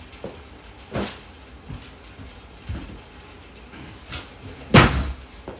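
A few knocks and thumps of someone moving about off-camera, handling things. There is a sharp knock about a second in and the loudest, heavier thump near the end.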